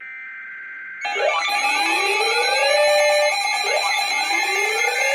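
An Emergency Alert System data burst, a harsh digital screech, for about the first second, then loud alert tones start: several steady tones layered with a rising sweep that repeats about every two and a half seconds. Together they signal an incoming weather alert.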